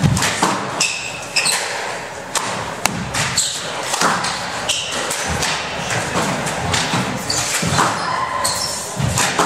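Squash rally: the ball smacks off rackets and walls every half second to a second. Short high squeaks from court shoes on the wooden floor come between the hits.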